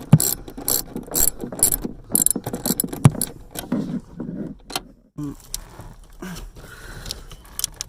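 Hand ratchet wrench clicking in quick runs as bolts are worked loose, with short pauses between strokes.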